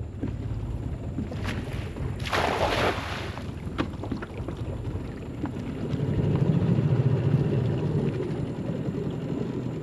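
A cast net landing on the water with a splash about two and a half seconds in, then its line being hauled back in by hand. Wind rumbles on the microphone in the second half.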